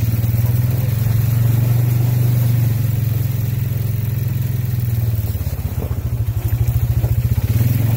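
2018 Polaris Sportsman 570 Touring ATV's single-cylinder four-stroke engine running as it rides along a trail. The engine eases off a little past halfway and picks up again near the end.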